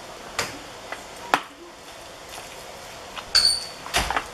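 A metal fork clinking and scraping against a glass mixing bowl while stirring a thick, sticky chicken, flour and egg filling: a few sharp clicks, a short ringing clink a little after three seconds, and a dull knock near the end as the bowl is gripped.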